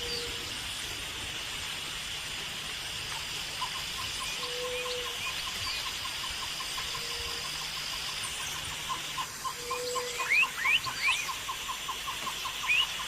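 Rainforest animal chorus: a steady high insect drone, a soft low hoot repeated every few seconds, and a rapid pulsing call at about four pulses a second starting a few seconds in. Short rising whistled calls come in over the last few seconds and are the loudest sounds.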